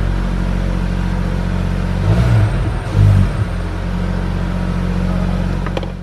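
Exhaust of a 2022 Volkswagen Golf 1.5 eTSI, a turbocharged four-cylinder petrol engine, idling steadily with two short blips of the throttle about two and three seconds in, then settling back to idle.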